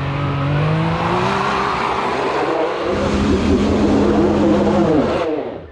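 Side-by-side UTV engine revving hard under load on a snowy hill climb, with tyres spinning in the snow. The revs climb near the start, are held high, rise again about halfway, then drop away just before the end.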